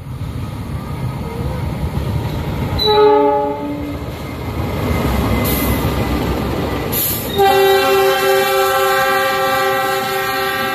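Two CC 206 diesel-electric locomotives running in multiple, passing close at speed: engine rumble builds, with a short horn blast about three seconds in and a long, held horn blast from about seven seconds in as the locomotives go by and the coaches follow.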